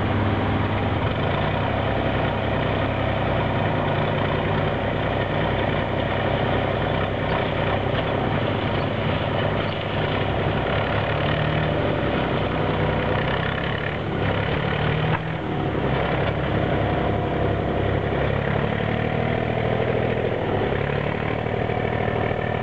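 An engine idling steadily, a continuous low drone that does not rise or fall.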